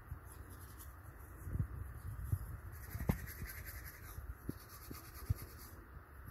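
Manual toothbrush scrubbing teeth: faint, quick scratchy brushing strokes that come in stretches, pausing briefly between them, with a few soft low knocks.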